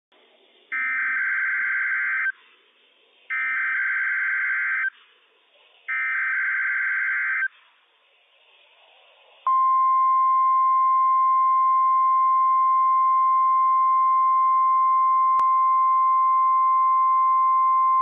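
NOAA Weather Radio test signal. First come three short bursts of the SAME digital header, each a buzzy data warble about a second and a half long. From about nine and a half seconds in, the steady 1050 Hz Warning Alarm Tone holds at one pitch.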